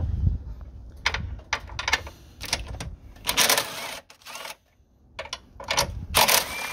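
Wrench clicking and rasping on the 12 mm nuts of the V-bar brace as they are loosened: a few sharp clicks in the first three seconds, then three longer rasping bursts.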